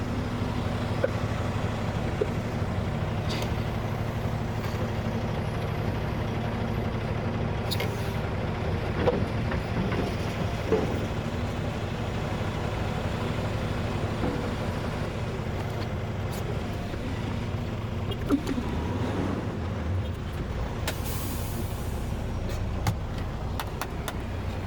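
Diesel gravel truck engine running steadily with a low hum, with scattered clicks and knocks and a short hiss about 21 seconds in.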